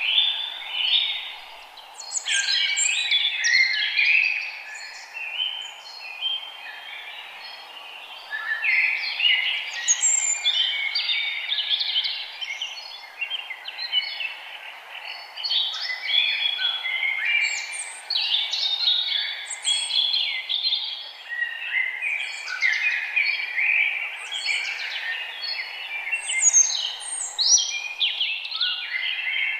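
Many birds chirping and singing at once, a dense chorus of overlapping short calls and trills with brief lulls, over a steady low background hiss.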